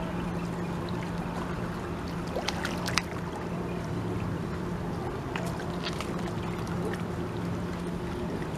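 A steady low motor hum over wind and water noise, with a sharp click about three seconds in as a line is cast from a Shimano Nasci 1000 spinning reel.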